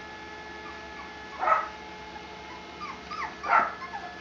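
Puppies whimpering and yipping: two short, sharp cries about a second and a half and three and a half seconds in, with thin, high whines between them.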